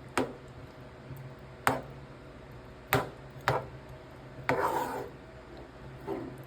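Cooking utensil handling at a stovetop pot or pan: about five sharp taps and knocks spaced irregularly, with a short scraping rub just past the middle.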